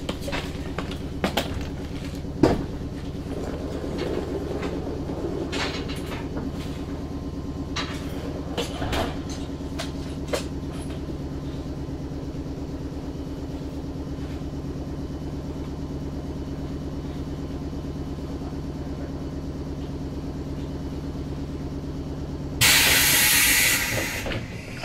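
Interior of a JR West 105 series electric train standing with a steady low hum from its onboard equipment, a few sharp clicks in the first ten seconds. About twenty-two seconds in comes a loud hiss of air lasting about two seconds, as the pneumatic doors open at the station.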